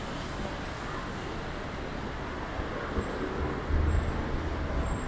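Rainy city street ambience: a steady hiss of rain and wet traffic, with a low rumble growing louder about two-thirds of the way in.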